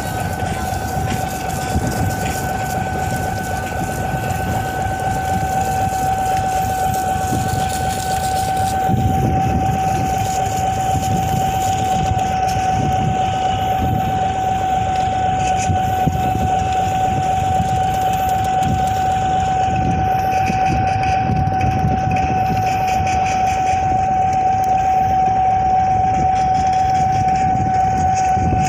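Boat engine running steadily: a low rumble under a constant high-pitched whine that holds one pitch throughout.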